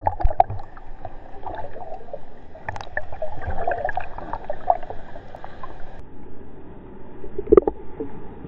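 Seawater lapping and splashing against a GoPro camera at the water's surface in the surf, muffled, with many small irregular splashes and a louder splash about seven and a half seconds in.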